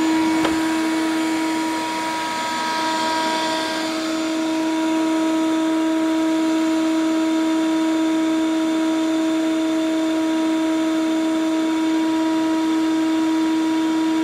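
Wet/dry shop vacuum running with a steady motor whine as its hose draws air, the level dipping briefly a few seconds in. A single sharp click about half a second in.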